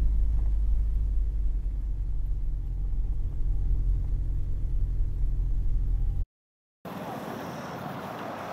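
Piston engine of a Mooney single-engine aircraft running at low taxi power, a steady low drone heard inside the cockpit. About six seconds in it cuts off abruptly, and a quieter steady rush of wind on the microphone follows.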